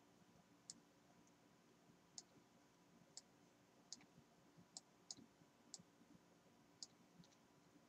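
Faint, scattered clicks from a computer keyboard and mouse, about ten short clicks at irregular spacing against near silence.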